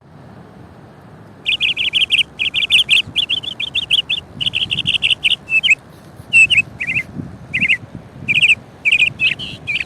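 A bird chirping: rapid high chirps in quick runs, starting about a second and a half in, over a faint steady background hiss.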